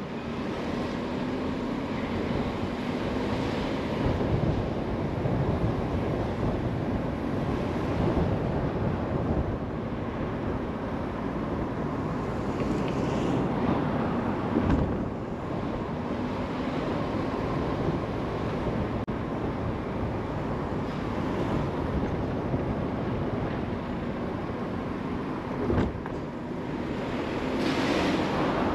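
Car driving along a road: steady tyre and wind noise with a low hum that drifts slowly in pitch. Two brief thumps come about halfway through and near the end.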